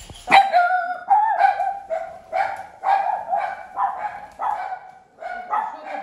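A dog barking repeatedly, about two barks a second, in a steady run that starts suddenly just after the start.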